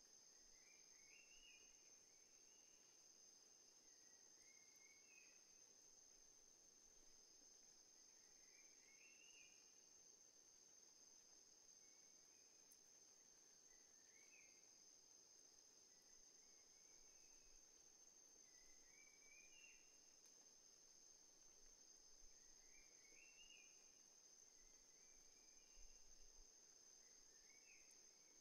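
Faint nature ambience: a steady high-pitched insect drone, with a short stepped, rising chirping call repeating every few seconds.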